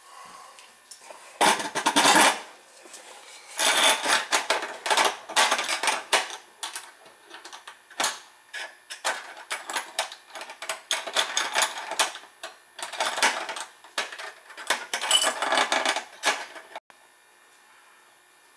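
Metal sink-hole plugs and a hole cover clicking and clattering on a stainless steel sink deck as they are handled and fitted into the faucet holes, in quick irregular clusters that stop abruptly near the end.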